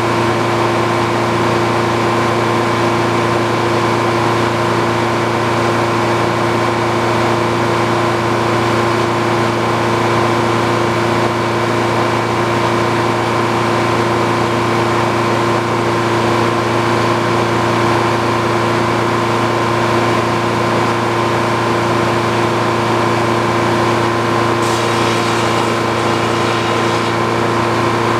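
An old Frick sawmill running steadily, a constant machine hum with several fixed tones. A brief hiss is heard near the end.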